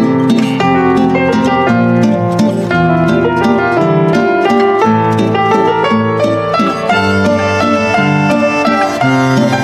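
Background instrumental music: quick plucked string notes over held bass notes.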